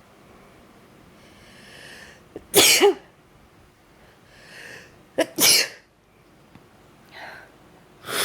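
A woman sneezing twice, each sneeze after a drawn-in breath, brought on by sneeze powder; another sneeze starts right at the end.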